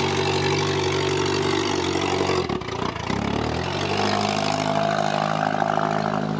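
Compact car's engine running steadily, dipping briefly about two and a half seconds in, then coming back at a slightly higher, steady pitch.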